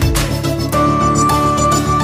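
Background music with a steady beat; about two-thirds of a second in, a long held melody note comes in over it.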